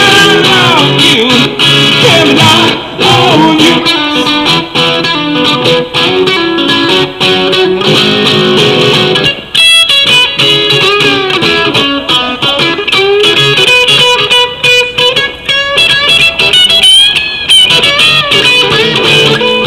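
Guitar music from a live song performance: picked notes and strummed chords.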